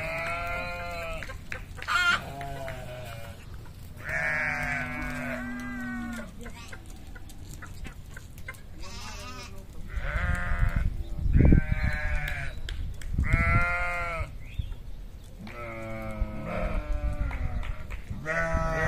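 A flock of sheep bleating: many quavering calls from different animals, a second or two apart and sometimes overlapping. A low rumble runs through the middle, loudest a little past halfway.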